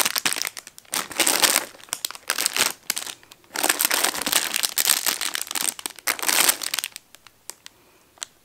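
Clear plastic cookie wrappers and a plastic bag liner crinkling as wrapped cookies are handled and moved in and out of a box. It comes in several bursts and dies down to a few faint rustles near the end.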